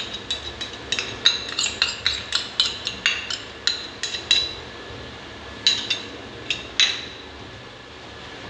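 A steel spoon clinking and tapping against metal as ginger-garlic paste is scraped out of a small steel bowl into the pan. A quick run of sharp metallic clinks, then a few more about two-thirds through.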